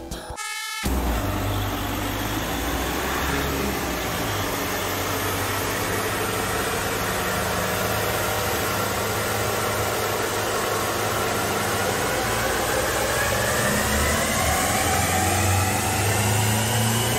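Chip-tuned Fiat Ducato X290 2.3 Multijet diesel engine running on a chassis dynamometer, with steady engine and roller noise. Over the last five seconds or so the pitch rises steadily as the revs climb under load in a dyno pull.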